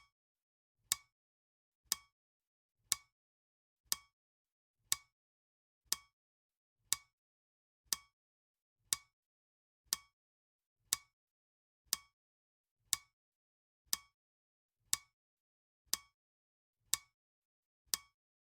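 Clock ticking steadily, one sharp tick each second with a short ring: the tick-tock of a countdown timer.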